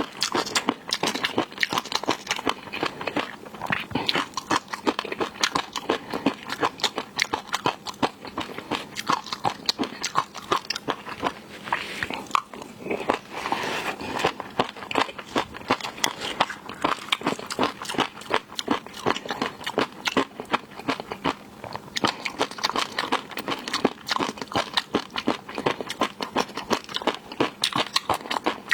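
Close-miked eating of seafood: continuous crunching and chewing, with many small crisp clicks a second.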